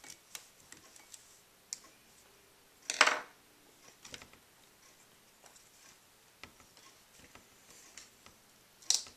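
Small Phillips screwdriver working tiny screws out of a laptop's LCD screen mount: scattered light metallic clicks and ticks, with a louder short scrape about three seconds in and another sharp click near the end.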